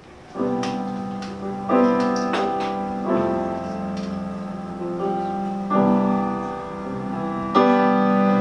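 Piano playing a slow introduction of five sustained chords, each struck and left to ring before the next, about one to two and a half seconds apart.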